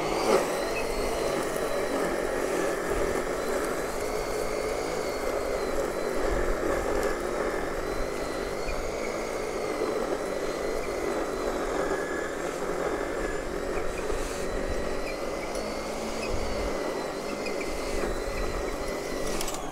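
Gardena electric lawn scarifier switched on and running steadily as it is pushed across the lawn, its spinning blades raking up dead thatch from the grass. A steady motor whine rides over the dense machine noise until it cuts off at the end.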